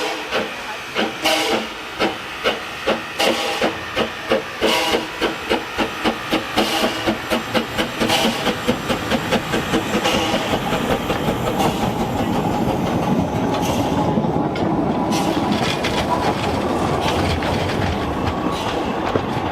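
Henschel steam locomotive pulling away: its exhaust chuffs come faster and faster until, about halfway through, they blur into a steady rush of running noise with a low rumble.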